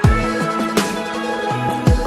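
Music with electronic beats: sustained chords over deep kick drums that drop in pitch as they fade, a few hits, with a sharp snare- or clap-like hit about three-quarters of a second in.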